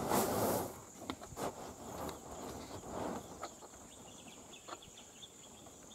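Steady high-pitched insect drone, with a burst of rustling at the start and scattered soft clicks and rustles after it.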